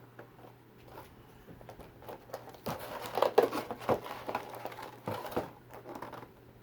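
Plastic and cardboard packaging being handled: irregular crinkling and small clicks, busiest in the middle, over a faint steady hum.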